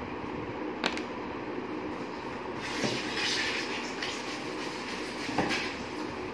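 Packaging being handled in a cardboard box: a sharp click about a second in, a stretch of rustling and scraping in the middle, and two dull knocks, over a steady low hum.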